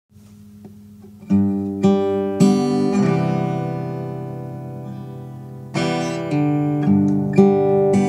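Intro music on acoustic guitar: a few plucked notes that ring and fade, one chord left ringing for about three seconds, then more single notes.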